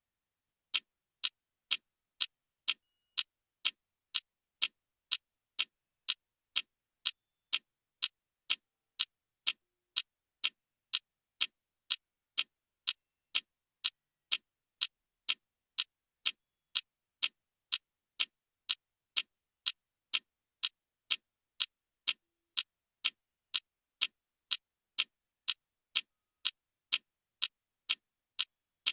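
Clock-timer ticking: sharp, identical ticks at a steady pace of about two a second, with silence between them.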